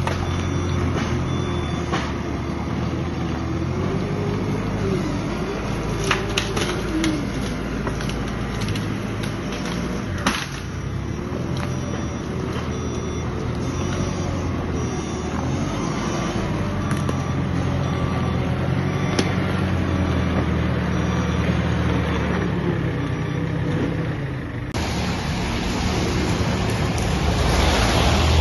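Telehandler's diesel engine working steadily, its revs rising and falling as it shifts a fallen tree, with a few sharp knocks along the way. Near the end a car passes close by with a rush of road noise.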